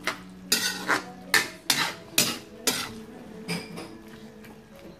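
A metal spatula clanking and scraping against an aluminium wok while stirring pork in sauce, in sharp strokes about twice a second, each with a brief metallic ring.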